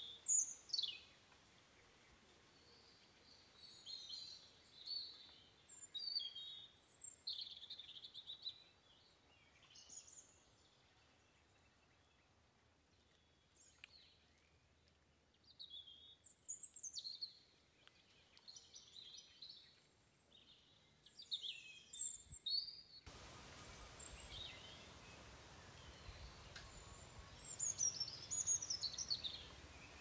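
Wild birds chirping and calling: short high notes and quick falling whistles, scattered and overlapping, over a faint background. About two-thirds of the way through, a steady low hiss comes in underneath.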